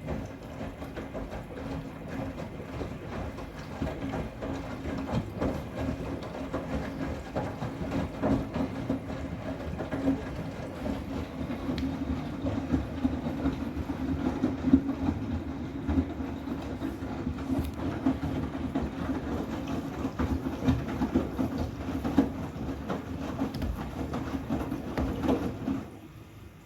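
Miele WCR 870 washing machine turning its drum with a wet load of bath towels: a steady motor hum with the towels knocking and tumbling. The run stops suddenly near the end, as the drum pauses between turns in the cotton wash.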